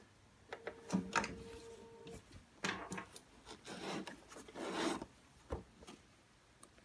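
Fabric layered with foam stabilizer rubbing and sliding in a few short swishes as the work is handled at the sewing machine. A brief steady hum from the machine sounds about half a second in, and a single sharp snip of thread scissors comes later.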